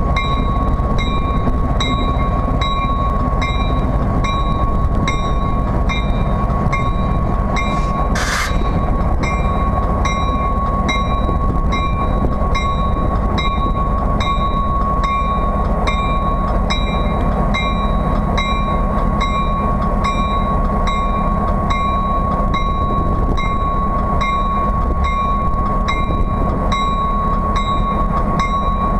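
Diesel-electric locomotive engine running with a steady low rumble, a steady whine and an even ticking about twice a second. A brief burst of hiss comes about eight seconds in.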